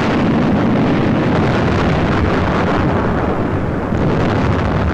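Long, steady explosion noise of a warship being blown up, dubbed onto the old film soundtrack, heaviest in the low end.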